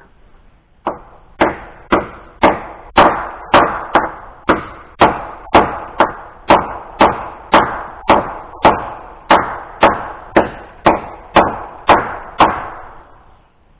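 Hammer blows struck at a steady pace, about twenty sharp strikes at roughly two a second, each with a short ring, as in driving nails into framing lumber.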